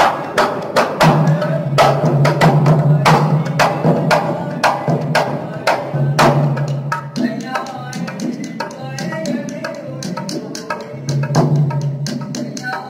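Dholak, a two-headed barrel drum, played with the hands in a quick run of strokes, over a low steady tone that comes and goes.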